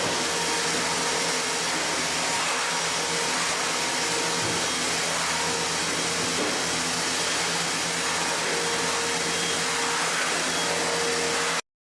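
Steady whooshing hum of an electric motor moving air, like a blower or vacuum, with faint steady tones in it; it cuts off abruptly near the end.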